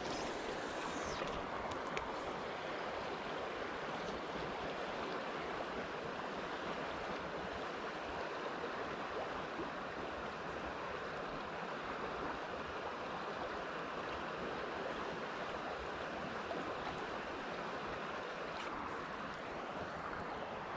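River current flowing over a rocky bed: a steady rush of water, with a brief hiss at the start and a small click near the end.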